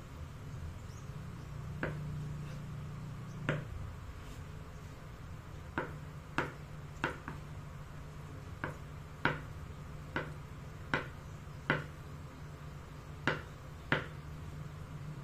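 Kitchen knife cutting a block of firm tofu into cubes, the blade knocking on a wooden cutting board with each cut: sharp taps at an uneven pace, about one a second.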